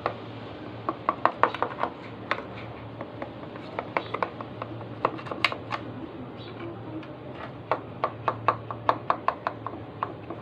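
Knife blade run around the edges of a baked cake in a square metal baking tin, clicking and scraping against the tin's walls in irregular runs of sharp ticks, several a second, with short pauses between runs, to loosen the cake from the tin.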